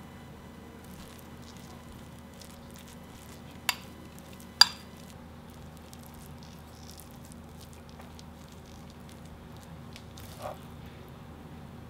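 Metal spoon scooping moist bulgur salad from a pan into a glass bowl, a soft wet crackle and squish of the grain. The spoon clinks sharply against the dishes twice about four seconds in and once more, lighter, near the end.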